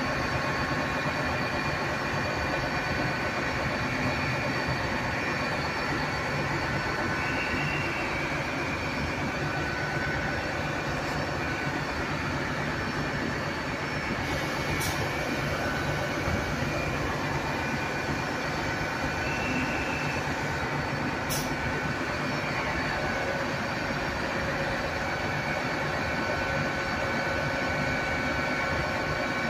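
LNER Azuma Class 800 bi-mode train running past on its underfloor diesel engines: a steady engine hum over wheel-on-rail rumble. Two sharp clicks come about halfway through.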